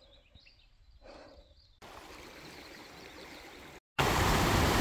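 Near silence, then a faint steady hiss; about four seconds in, a mountain creek rushing over rocks cuts in abruptly and loudly.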